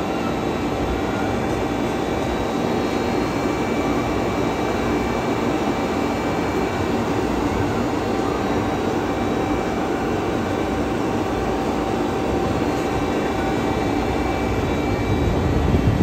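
A steady mechanical drone with a few constant humming tones running through it, unchanging throughout.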